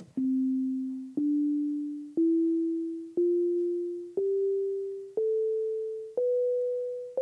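Sonic Pi's default beep synth, a plain sine tone, playing the C major scale upward from middle C, one note a second. Each note starts with a small click and fades before the next.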